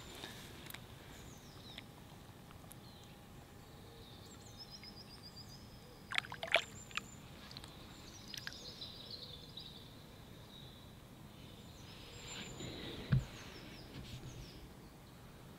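Quiet lakeside ambience with birds calling, one giving a short trill about five seconds in. A few brief sharp water sounds about six seconds in as the trout is released back into the lake, and a single low thump near the end.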